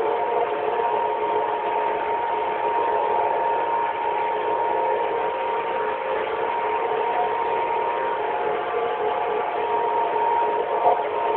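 Steady running of an old New Holland 1900 harvester and its home-made triple mowers while mowing grass, heard from inside the cab: an even drone with a constant whine.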